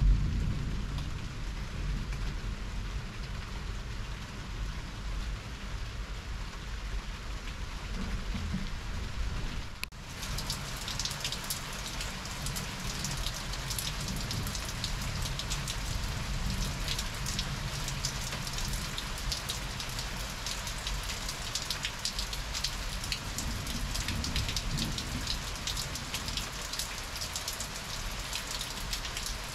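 Heavy thunderstorm rain falling steadily, with a low rumble of thunder dying away over the first several seconds. About ten seconds in the sound changes abruptly to a sharper, crackling patter of individual raindrops.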